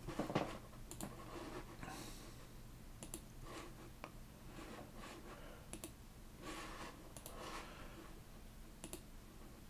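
Faint, scattered clicks of a computer mouse and keyboard at irregular intervals over a low steady hum.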